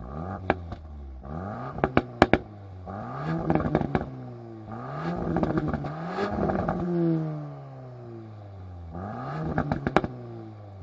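Volkswagen Golf R's turbocharged 2.0-litre four-cylinder revved up and down several times through its quad exhaust. Sharp pops and crackles come in a cluster about two seconds in and again near the end.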